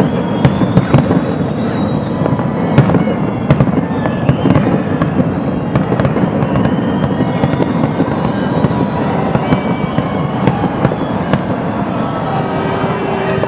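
Fireworks finale: many sharp bangs and crackles fired in quick succession over a continuous low rumble of bursting shells.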